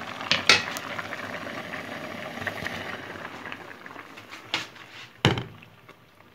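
Pot of spaghetti boiling hard in water, a steady bubbling hiss that fades near the end. A few sharp knocks are heard, two early on and two late; the last one, about five seconds in, is the loudest.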